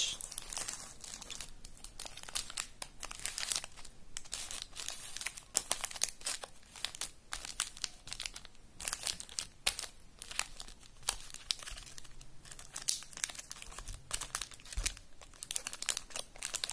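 Plastic and foil chocolate-bar wrappers crinkling as a hand shifts and handles the wrapped bars, a steady run of irregular crackles.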